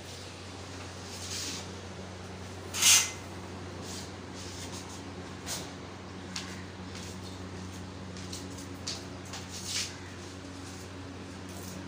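Brief swishes of clothing and movement as a person moves about a small room, the loudest about three seconds in, over a steady low hum.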